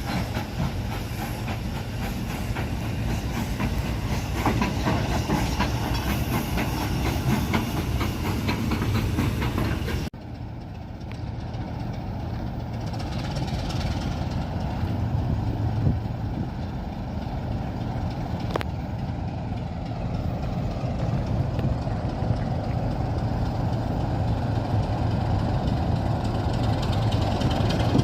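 A train running on the rails, its wheels clicking rapidly over the track. About ten seconds in the sound cuts to a steady low engine rumble.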